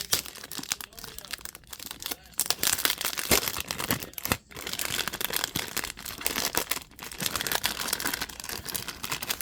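Crinkly plastic wrapper of a trading card pack or box being handled, crumpled and torn open by hand, a dense irregular crackling that thickens a couple of seconds in.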